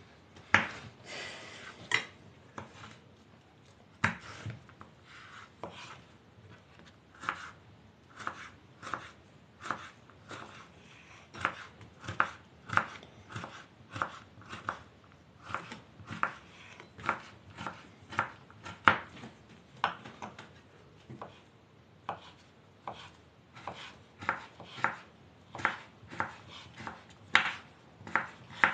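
Kitchen knives chopping on wooden cutting boards as fresh cucumber is diced small and boiled sausage is sliced: a run of sharp blade-on-board knocks, one or two a second.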